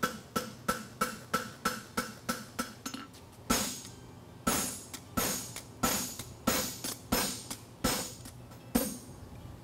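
Farrier's hammer striking a steel horseshoe on the anvil, shaping the shoe. A quick run of lighter blows with a ringing anvil tone, about three a second, then after a brief pause a slower run of heavier blows.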